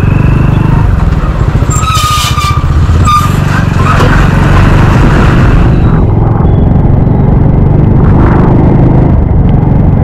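Motorcycle engine running steadily while riding along the road, with a brief higher tone about two seconds in and again near three seconds.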